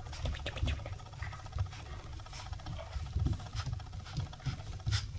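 Toy poodle puppy scrabbling and playing on a quilted blanket under a person's hand: irregular soft thumps with light scratching and pattering.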